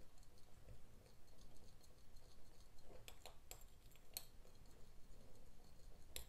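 Faint mixing of water into a solubilizer in a small glass dish, with a few light clicks against the glass from about three seconds in.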